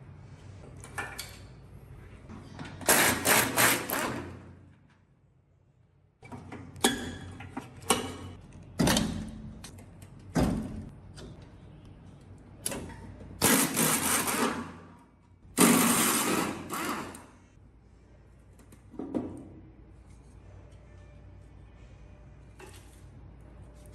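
Workshop handling noises: several bursts of clattering and scraping, each lasting a second or so, with sharp knocks in between, from parts being worked on by hand.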